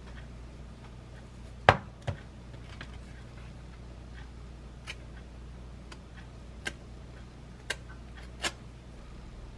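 Small knife scooping Greek yogurt from a plastic tub and spreading it on a bagel: about six light clicks and taps of the knife, the loudest about two seconds in, over a low steady hum.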